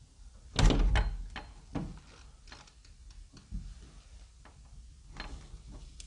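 A metal doorknob on a wooden door being turned and rattled, with latch clicks and knocks. The loudest clatter comes about half a second in, followed by softer scattered clicks.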